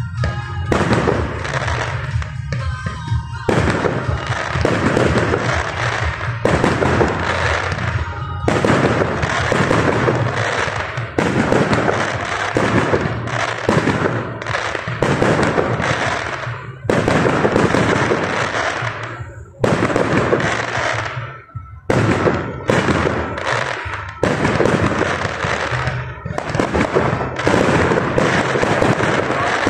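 Fireworks display: a near-continuous run of aerial shells bursting, with bangs and crackling, and brief lulls about two-thirds of the way through. Music plays under the first few seconds.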